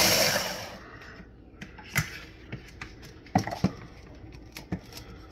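Ninja food chopper's motor running on a bowl of crushed Doritos, then stopping and spinning down within the first second. Scattered sharp plastic clicks and knocks follow as the motor head is handled on the bowl.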